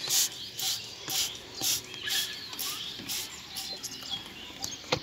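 Hand trigger spray bottle squirting a shampoo-and-water insecticide onto plant leaves in a quick series of short hisses, about two a second.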